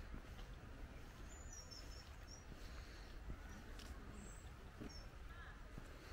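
Faint birdsong in a garden: small birds give several short, high chirps over a steady low rumble.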